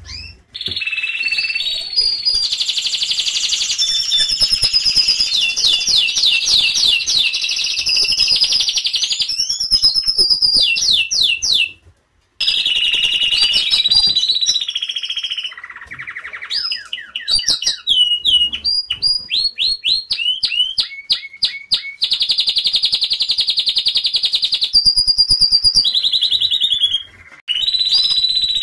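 Yellow domestic canary singing a long song of fast trills, runs of quick falling notes and steady rolls, pausing briefly about twelve seconds in and again near the end.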